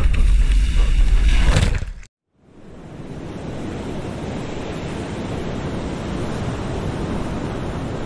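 Wind buffeting the microphone over choppy sea, cutting off abruptly about two seconds in. After a moment of silence, a steady rush of ocean surf fades in and carries on evenly.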